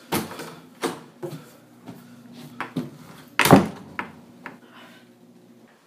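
Interior door being opened: the handle clicks and knocks, then the door slams shut about three and a half seconds in, followed by a few lighter knocks.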